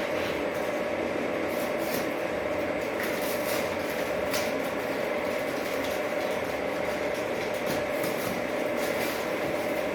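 O gauge model locomotive running along the track: a steady electric motor hum with scattered clicks.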